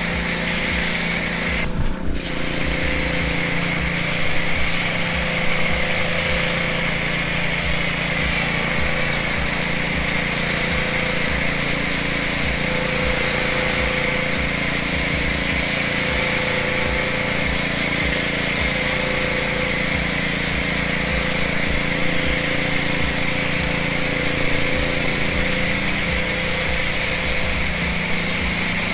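Pressure washer running and spraying soap foam through a foam cannon, a steady spray with the pump's low pulsing beneath it; the spray breaks off briefly about two seconds in.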